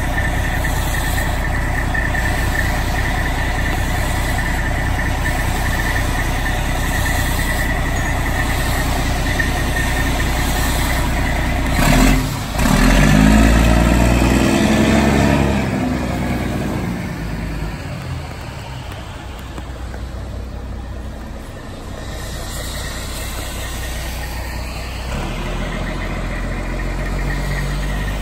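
Diesel fire engine idling with a steady high whine, then about twelve seconds in a short burst of noise and the engine revs up as the truck pulls away, its sound fading over the next several seconds.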